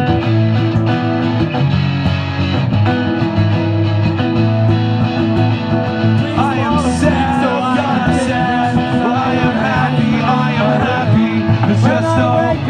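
Rock music with guitar: an instrumental stretch, with a singing voice coming in about halfway through.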